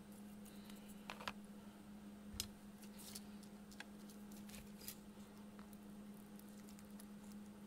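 Faint handling noise of a small perfboard and its component leads: scattered small clicks and taps, the loudest about a second in and again past two seconds, over a steady low hum.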